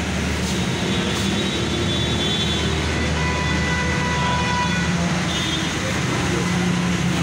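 A steady low mechanical drone over constant background noise, typical of a nearby engine or road traffic, with faint thin high tones coming and going.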